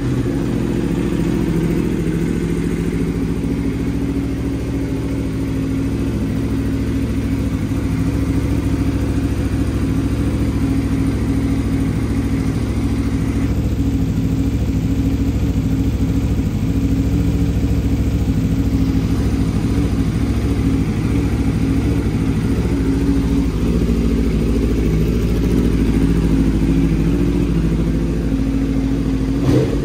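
Aprilia RSV4 1100 Factory's V4 engine idling steadily just after being started, still on its stock exhaust.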